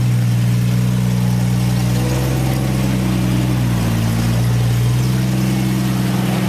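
Off-road vehicle's engine running steadily at low revs while crawling over rocks, its pitch dipping and recovering briefly about four seconds in.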